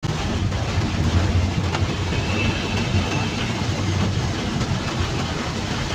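Inside the cab of a Suzuki New Carry pickup driving in heavy rain: a steady mix of rain hitting the roof and windscreen over the low rumble of the engine and tyres on the wet road.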